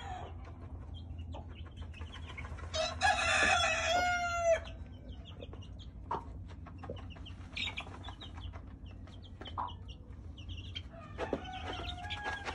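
A hen and her chicks dust bathing in a pan of ashes: the chicks peep in short high notes throughout, with low clucking. One long, loud bird call comes about three seconds in, and a shorter burst of calls near the end.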